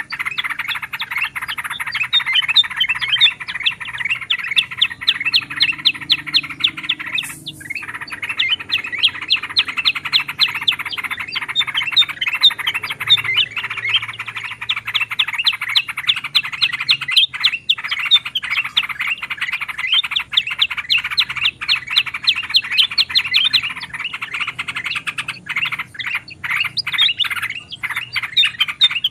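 Bulbuls chirping in a dense, fast chorus of many chirps a second, with a brief gap about seven seconds in: a mixed bird-lure recording of yellow-vented bulbul, black-crested bulbul and black-headed bulbul calls.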